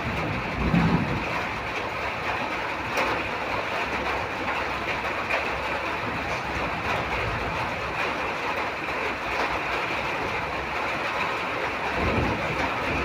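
Steady rain falling, an even, continuous hiss.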